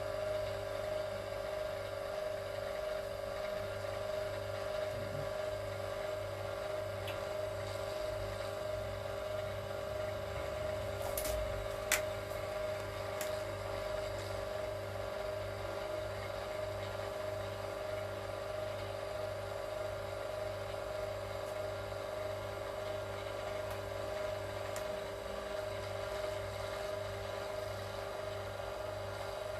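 Electric copper-wire stripping machine running steadily, its motor giving a constant hum. A sharp click comes about twelve seconds in.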